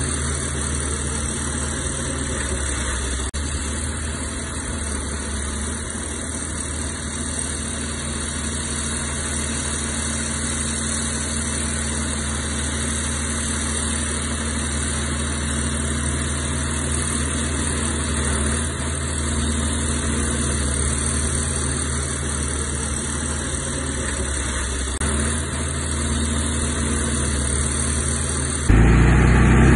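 Heavy diesel engine of earth-moving machinery running steadily. Near the end the sound changes abruptly and gets louder.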